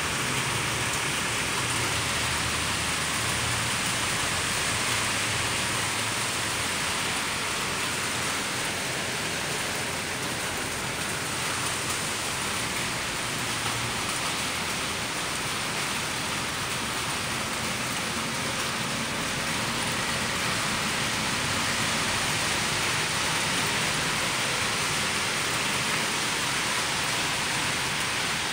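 Steady rain falling on grass, puddles and concrete paving slabs: an even hiss.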